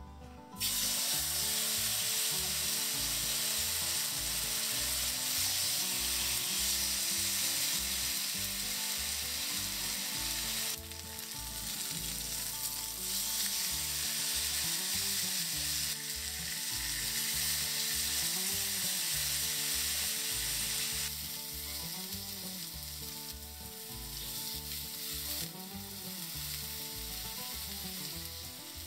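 Meat frying in a hot pan, a steady sizzle that starts abruptly about half a second in and drops briefly in level about eleven seconds in and again later, with quiet background music underneath.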